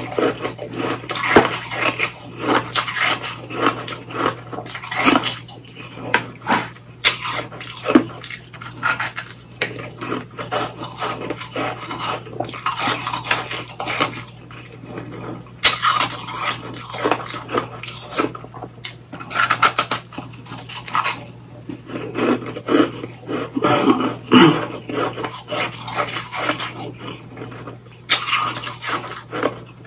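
Close-miked chewing of a mouthful of shaved ice, a dense run of irregular crisp crunches with a few short pauses.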